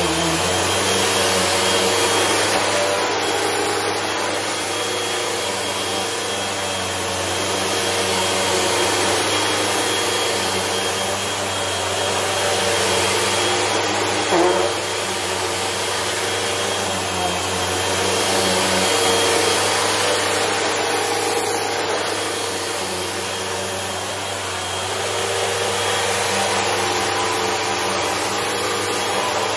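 Bagless upright vacuum cleaner running steadily over a rug, its hum and hiss swelling and easing every few seconds as it is pushed back and forth. A brief knock about halfway through.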